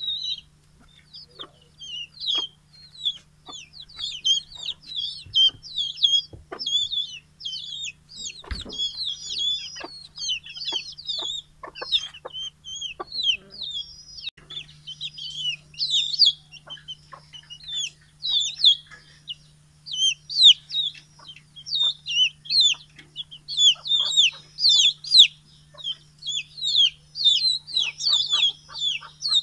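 A flock of chickens, young and grown, calling at feeding time: a constant stream of short, high peeps several times a second, with short clucks among them. One louder thump about eight and a half seconds in.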